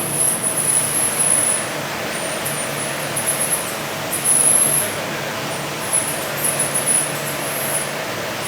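Machining equipment running in a workshop: a steady mechanical hum with a constant mid-pitched tone, and short high-pitched hisses starting and stopping every second or so.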